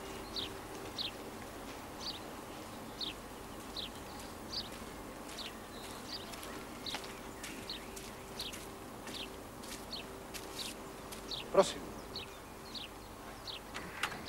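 A bird chirping short, downward-sliding calls over and over, about one a second, over a faint steady hum. About eleven and a half seconds in comes a single sharp knock, the loudest sound.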